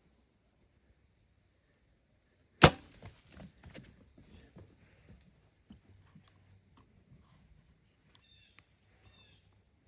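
A single loud, sharp shot about two and a half seconds in, followed by light rustling and clicks. A crow caws a few times near the end.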